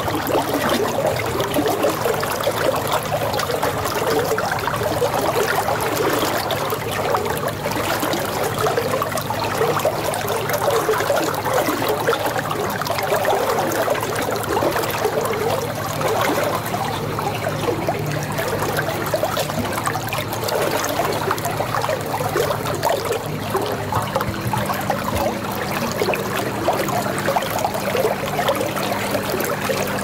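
Flowing water trickling and gurgling steadily, without a break.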